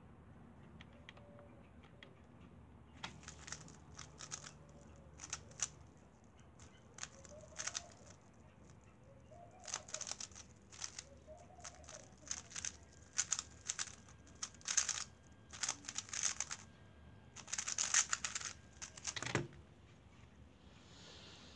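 Weilong GTS2 3x3 speedcube turned rapidly in a speedsolve: runs of fast plastic clicking and clacking separated by short pauses, starting about three seconds in and getting louder toward the end. A single low thump closes the solve near the end.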